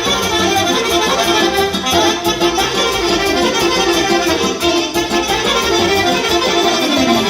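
Instrumental break in Transylvanian (ardelene) folk music, with accordion and violin playing together.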